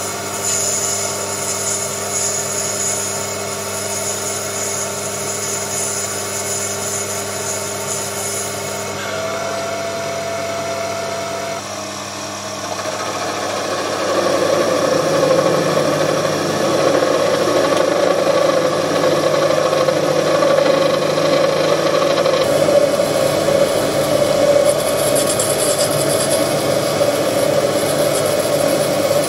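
Mini metal lathe (Proxxon PD 250/e) running as a twist drill bores into brass, then turning brass with a lathe tool. About halfway through, the sound changes and grows louder and noisier as the tool cuts and throws off chips.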